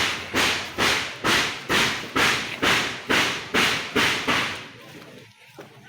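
Footsteps of someone walking with the camera, an even stride of about two steps a second with a crunch or scuff at each step, stopping about four and a half seconds in.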